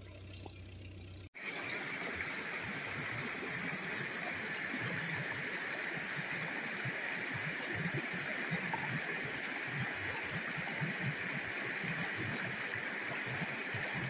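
A shallow stream running over rocks: a steady babble of flowing water that starts abruptly about a second in.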